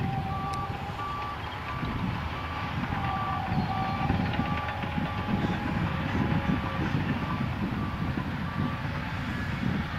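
Stinson SR-9E Reliant's radial engine running with a low, uneven rumble as the plane comes in to land and touches down on grass. Over it a steady repeated beep, a bit more than one a second, like a vehicle's reversing alarm, stops near the end.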